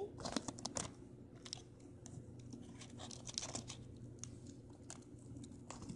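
Adhesive tape being torn and pressed onto a piece of cardboard by hand: faint, scattered crinkles and clicks, busiest in the first second.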